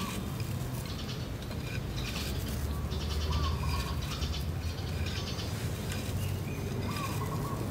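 Birds calling in short, repeated chirps and trills over a steady low background rumble.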